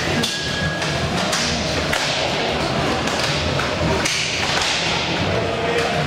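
Inline roller hockey game sounds: scattered sharp knocks and thuds of sticks, puck and players against the rink and boards, over a steady noisy din of play.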